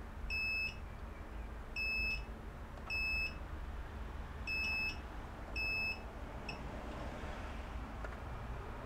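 Multimeter continuity beeper sounding five times in short, high, single-pitched beeps of about half a second each at uneven intervals, then a brief chirp. Each beep marks the probes closing a connection, here between the power supply's pins and ground. A steady low hum runs underneath.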